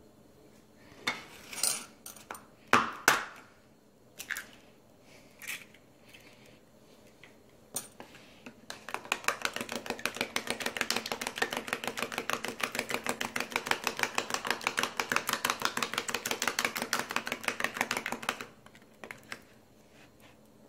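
An egg knocked sharply a few times against the rim of a small bowl to crack it, then beaten briskly with a metal fork in the bowl for about ten seconds, a fast, even clatter of strokes.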